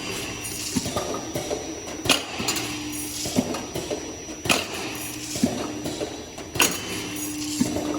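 Four-head automatic linear weigher running its cycle: vibratory feeders hum in short spells while the weigh-bucket gates clack open about every two seconds, with cereal rattling through the chutes.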